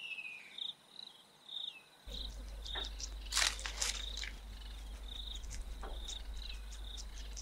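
Cricket chirping in short, evenly repeated pulses. About three seconds in there is a burst of rustling and crackling, and a low steady hum comes in about two seconds in.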